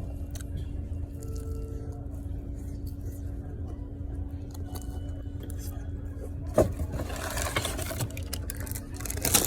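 Steady low rumble of a car idling. About six and a half seconds in, a sharp click and then continuous crinkling as paper food packaging is handled.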